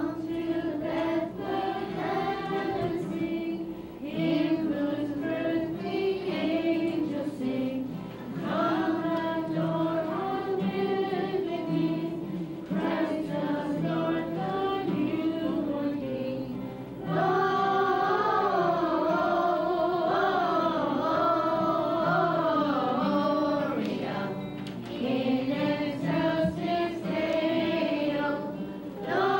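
A group of children singing a Christmas carol together, growing louder and fuller partway through.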